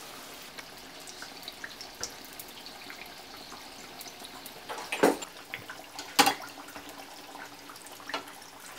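Hot oil sizzling and crackling steadily around pieces of pear deep-frying in a pan, with two sharp, louder cracks about five and six seconds in.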